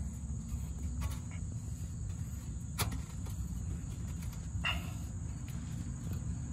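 A few light metal clicks and a short squeaky scrape, about two-thirds of the way through, as an exhaust pipe adapter coated in gasket maker is worked onto the Jeep Liberty's exhaust pipe, over a steady low rumble and a thin high tone.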